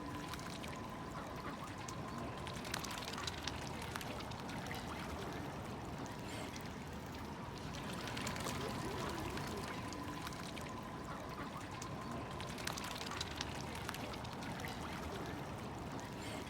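Water trickling and splashing in a steady wash, with scattered small drips and clicks.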